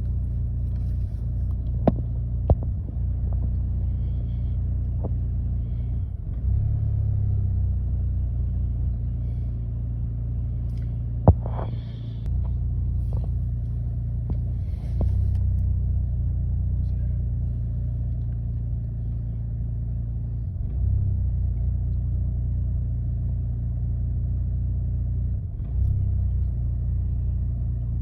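2008 Chevy Malibu engine running at a rough idle, its sound stepping up and down in level several times, with a few sharp clicks. The owner has no diagnosis for the rough idle.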